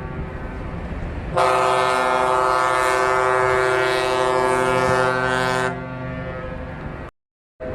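Ship's horn sounding one long steady blast of about four seconds, a deep tone rich in overtones, following a fainter horn tone. Near the end it drops away into a brief silence and another horn recording begins.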